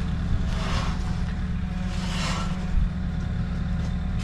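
A steady low engine rumble, with two short swells of hissing noise about a second apart.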